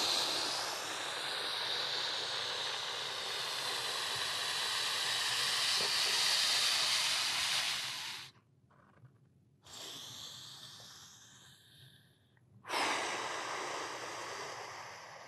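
A man's long, forceful exhale through the mouth, a steady hiss lasting about eight seconds that empties the lungs in a deep diaphragmatic breathing exercise. Two more breaths follow, a faint one and then a louder one that tapers off.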